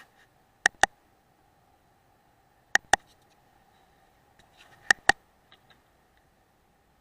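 Three pairs of sharp clicks from a Weihrauch HW100 air rifle, roughly two seconds apart, the two clicks in each pair a fraction of a second apart. A few faint ticks fall between them, over a faint steady whine.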